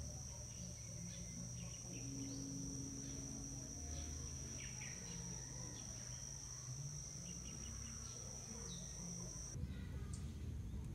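Insects trilling in a steady high-pitched drone, with a few short bird chirps over it; the drone cuts off abruptly near the end.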